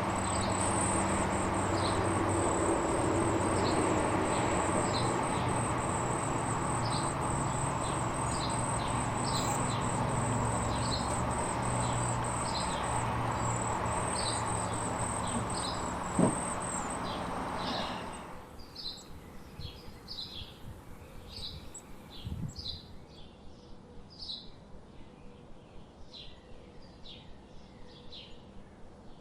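Birds repeating short high chirps about once a second, over an insect's steady high-pitched trill and a loud low rumbling noise. About eighteen seconds in, the rumble and the trill cut off abruptly, and the chirps carry on a little faster against a quiet background.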